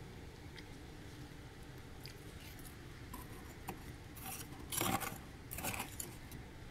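Flat spoon scraping through thick freezer frost. A few short scrapes and crunchy clicks start about three seconds in, with the loudest scrape near five seconds and another just before six.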